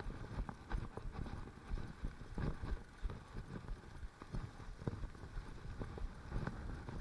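Mountain bike on a rough dirt trail: irregular knocks and rattles as the bike goes over roots and ruts, over a low rumble.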